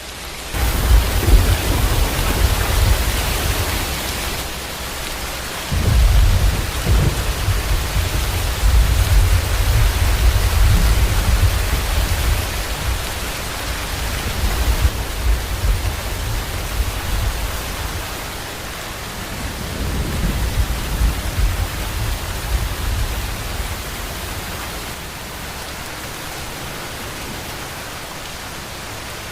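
Steady heavy rain with rolling thunder: a low rumble starts about half a second in, a louder one rolls from about six seconds for several seconds, and a weaker one comes around twenty seconds, before the rain goes on alone near the end.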